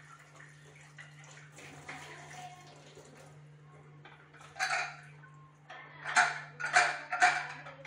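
A metal pressure-cooker lid being washed at a kitchen sink: faint water splashing, then four loud clanks of metal against metal and the sink in the second half.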